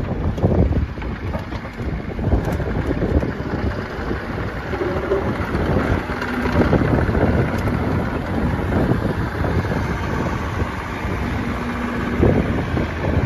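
Bobcat E42 mini excavator's 42 hp Doosan diesel engine running steadily while the machine swings and travels on its tracks. Wind buffets the microphone.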